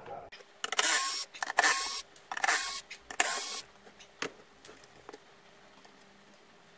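A powered screwdriver runs in four short bursts of about half a second each, backing out the screws that hold a speaker tweeter in the cabinet's front baffle. A few light clicks follow as the tweeter is handled loose.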